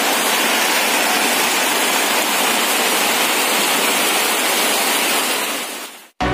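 Heavy rain falling, a loud steady hiss that fades out just before the end.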